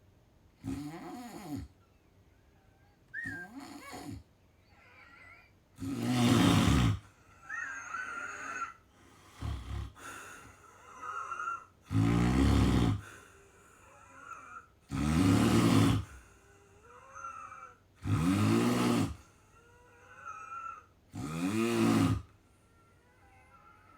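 A sleeping person snoring, with loud snores about every three seconds and softer breathing noises between them.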